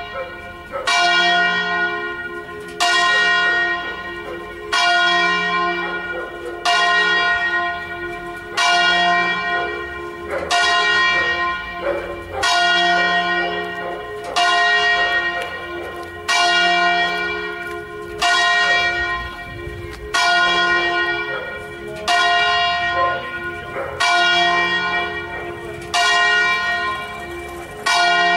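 Church bells in a brick belfry ringing, with a loud stroke about every two seconds in a slow, even rhythm. Each stroke hums on until the next one.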